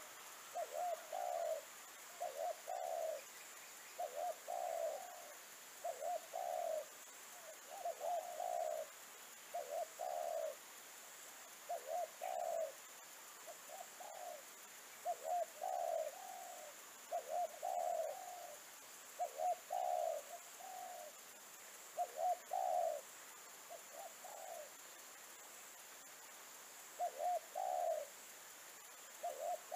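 Spotted dove cooing: low, hooting notes in pairs, repeated over and over about every one to two seconds, with a brief pause past the middle.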